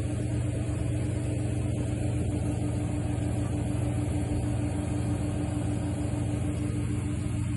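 Motorboat engine running steadily while towing a parasail: a constant low drone with a steady higher hum over it.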